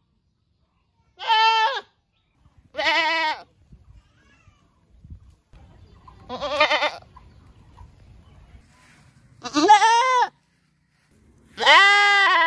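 Goats bleating: five separate bleats of under a second each, spaced one to three seconds apart. Each rises and falls slightly in pitch, and the last runs on past the end.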